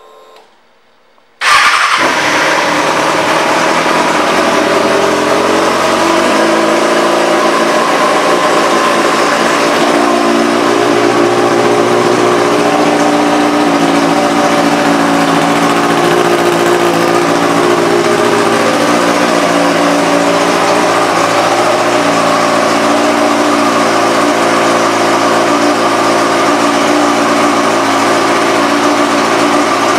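Kawasaki Ninja ZX-6R's 599 cc inline-four, fitted with a Yoshimura aftermarket exhaust, starts abruptly about a second and a half in and runs at a steady idle. The note shifts slightly about six seconds in, then holds steady.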